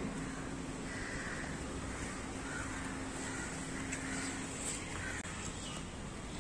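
Steady outdoor background noise with a low, even hum through most of the first four seconds and a few faint, short, higher-pitched sounds.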